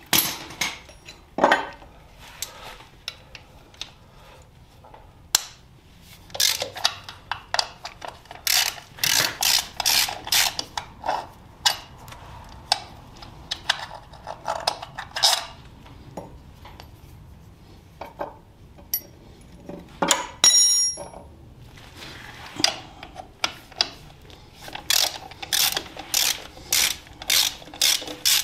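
Hand socket ratchet clicking in runs of a few clicks a second as bolts on a motorcycle's sprocket cover are backed out, with pauses between bolts. About twenty seconds in, a short bright metallic ring.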